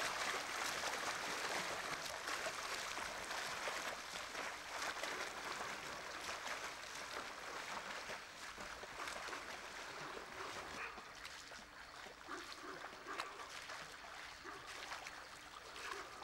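A swimmer's arm strokes splashing and churning the water of a swimming pool, a continuous run of small splashes, a little louder in the first few seconds.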